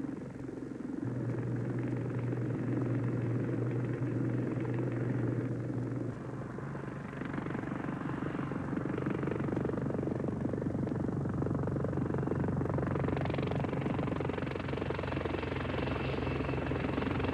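Westland Lynx helicopter running: the steady beat of the rotors and the whine of the turbines. The sound changes about six seconds in. In the last few seconds it turns brighter as the helicopter flies close by.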